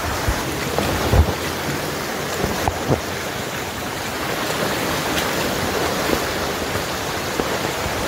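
Steady rush of flowing water from a nearby stream and waterfall, with a few low thumps in the first three seconds.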